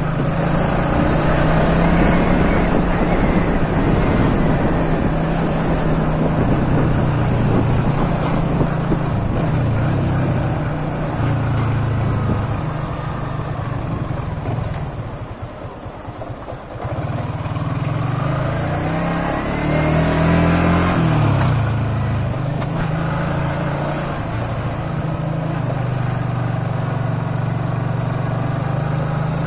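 Motorcycle engine running under way, with wind and road noise. It rises in pitch as the bike accelerates near the start, drops lower and quieter a little past the middle as the bike slows, then rises again as it speeds up.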